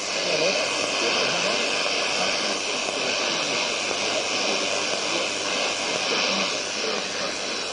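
XHDATA D-109 portable radio's speaker playing a weak shortwave signal from Radio Martí on 13820 kHz, mostly steady hiss and static with the programme buried underneath.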